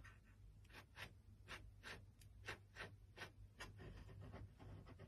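Faint, quick clicks or taps, about three a second and unevenly spaced, over near silence.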